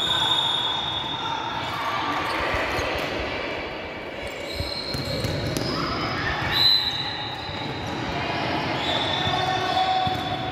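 A basketball bouncing on the court floor among players' and spectators' voices calling out, all echoing in a large sports hall, with a sharp high-pitched sound about two-thirds of the way through.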